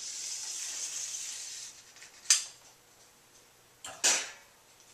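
Wet film strip being pulled off its developing reel, a steady sliding hiss with faint clicks, then two sharp snaps, about two seconds in and about four seconds in, as the freed strip whips and is lifted up.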